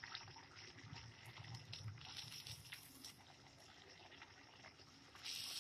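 Faint sizzling and fine crackling of golgappa puris frying in very hot oil, growing louder about five seconds in.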